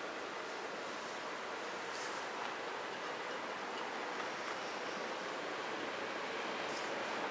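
Dutch level-crossing warning bells ringing in a rapid, steady high-pitched tinkle, signalling that the barriers are down and a train is due.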